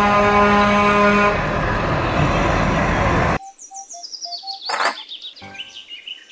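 A truck's air horn sounds one long, steady blast, then a loud rushing vehicle noise, and both cut off suddenly about three and a half seconds in. After that come quieter high chirps and a sharp click of a plastic toy being handled.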